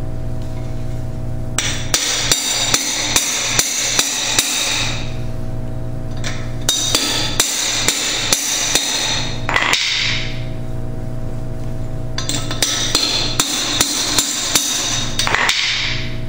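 Hammer blows on a bushing driver, driving a new bushing into the bore of a Berkeley jet pump's bowl. The sharp, ringing metal strikes come in three runs of about seven or eight, two or three a second, with short pauses between the runs, over a steady low hum.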